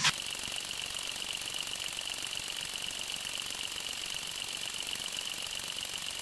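LEGO Technic wave generator running, its motor and gears giving a steady, fast mechanical rattle with a high steady whine over it.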